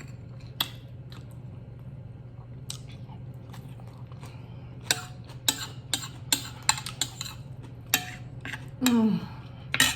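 Cutlery clicking and scraping against a plate while food is eaten, with a quick run of clicks in the second half. A short falling vocal sound comes near the end, over a steady low hum.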